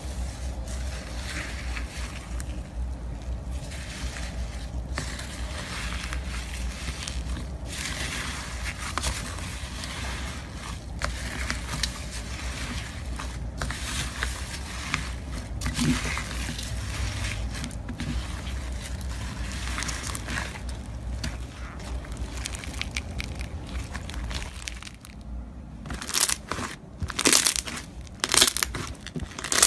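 Slime being squeezed and worked by hand, giving a dense stream of small crackles and crunches. About 26 seconds in it changes to a few separate, louder crunches.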